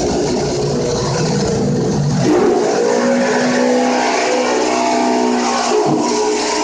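Turbo Hybrid hard-surface spinner tool running over tile floor: a loud, steady spraying and vacuum hiss with a whine whose pitch shifts about two and a half seconds in and again near the end.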